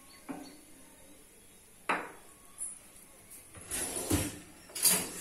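Kitchen handling sounds: two sharp clicks, then about a second and a half of knocks and clatter near the end.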